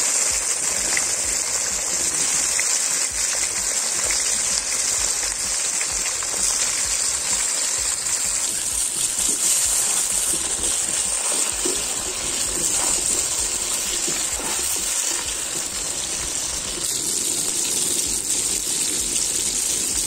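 Chunks of bone-in meat deep-frying in hot oil in a cast-iron kazan: a steady sizzle.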